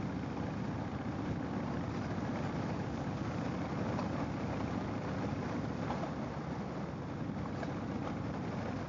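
Harley-Davidson motorcycle on the road at a steady speed: a low engine drone under a rush of wind over the microphone, even throughout.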